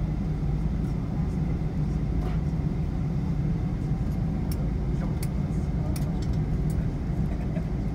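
Steady low rumble of a Boeing 777's cabin as it taxis after landing, its Rolls-Royce Trent engines at idle. A few faint clicks come in the second half.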